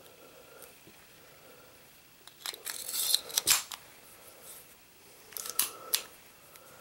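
Browning 1911-22 Compact pistol being handled: metal clicks and sliding as the slide is worked by hand, in two short clusters, about two and a half seconds in and again about five and a half seconds in.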